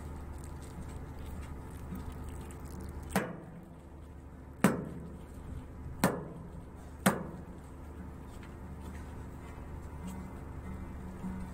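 Four sharp knocks, about a second to a second and a half apart, each ringing briefly, over a steady low rumble.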